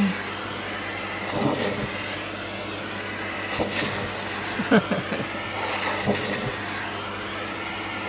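Vacuum cleaner running on a low suction setting, its hose nozzle held against a cat's fur to pick up loose hair. It runs steadily, and the rush of air rises briefly three times.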